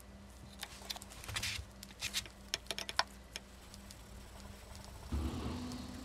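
Hand-sanding etched damascus steel: small clicks and short scratchy rubs as a block is set on and worked over the clamped knife blade, then a longer rubbing stroke along the blade starting about five seconds in, taking the dark etch oxide off the high layers to bring out the pattern.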